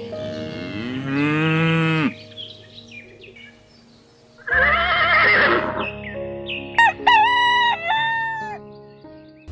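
Farm-animal sound effects over background music: a low drawn-out call about a second in, then a rooster crowing in the second half, in several sharp syllables ending in a longer one.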